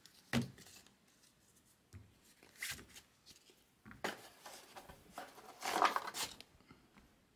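Baseball trading cards being handled on a tabletop: a sharp tap about a third of a second in as a stack of cards is set down, then several short spells of cards sliding and rustling, the longest and loudest near the end.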